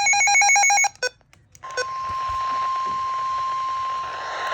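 Emergency alert tones: a rapid pulsing electronic beep cuts off just under a second in, then after a brief gap with a couple of clicks a single steady NOAA Weather Radio 1050 Hz warning alarm tone starts and holds over faint radio hiss.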